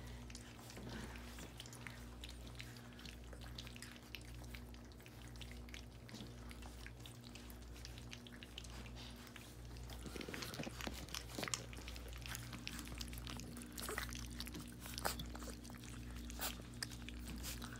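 A litter of weaning puppies lapping and slurping gruel from a shallow steel feeding pan, making many small wet smacks and clicks that get busier in the second half. A steady low hum runs underneath.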